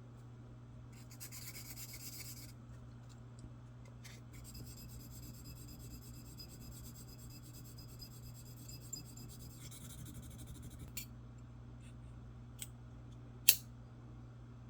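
Fine 1000-grit sandpaper, wrapped around a wooden dowel, rubbed on a metal lock pick to smooth its rough edges: a faint scratchy hiss in stretches. A single sharp click comes near the end.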